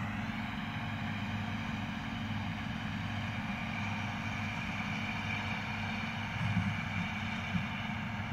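Tractor-drawn forage harvester cutting guinea grass, running steadily: a low engine drone under an even hiss.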